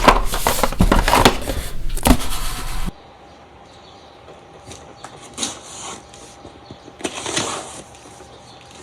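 Cardboard box of Nespresso capsules being handled and packed, with a clatter of knocks and rustles; after about three seconds it cuts off abruptly, leaving only a few faint rustles.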